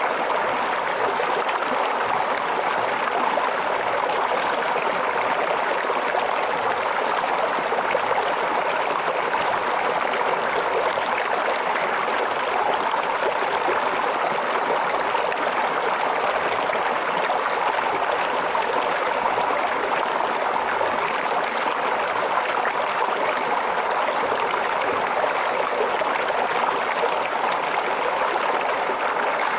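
Stream water babbling and trickling, steady and unbroken.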